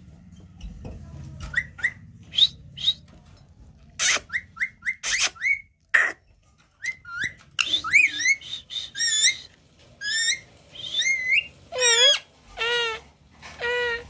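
Indian ringneck parakeet calling: a run of short rising whistles and chirps, two harsh squawks about four and five seconds in, then longer warbling calls in the second half.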